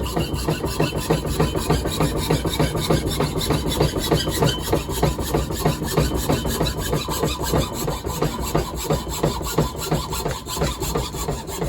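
Hand saw cutting into a pine wood block with quick, steady back-and-forth strokes, several a second, each a dry rasp.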